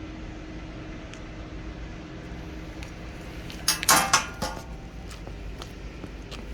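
A short burst of clattering clicks about four seconds in, then a few lighter scattered clicks, over a steady low hum.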